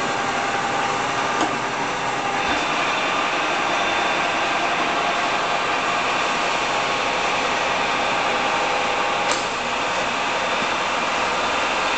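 Cincinnati-Bickford radial arm drill running, its spindle drive giving a steady mechanical hum with several fixed whining tones; the tone shifts slightly about two and a half seconds in, and a short click sounds near nine seconds.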